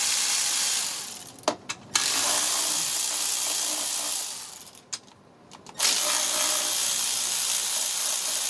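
Ratchet with a 10 mm socket spinning out a bolt in three runs of fast, even clicking, broken by two short pauses. Those pauses hold a few single clicks. The bolt comes free, one of the engine cover's fasteners.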